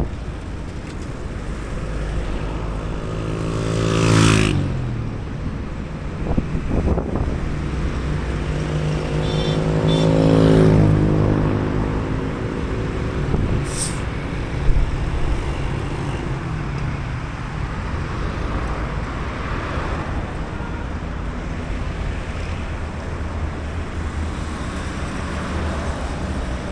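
Street traffic with a steady low engine rumble, as vehicles drive past; two pass close by, one about four seconds in and another about ten seconds in, their engine pitch falling as they go by.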